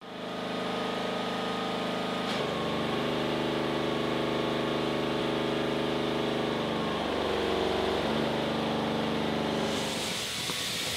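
An engine running steadily, its pitch shifting about two seconds in and gliding down and back up a few seconds later; near the end a steady hiss comes in.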